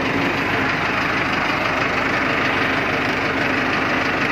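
Massey Ferguson 385 tractor's four-cylinder diesel engine running steadily.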